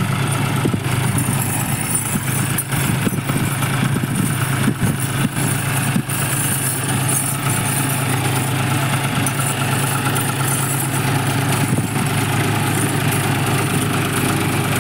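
John Deere 5036 D tractor's three-cylinder diesel engine running steadily under heavy load as it pulls a loaded trailer up a slope, with a few knocks in the first half.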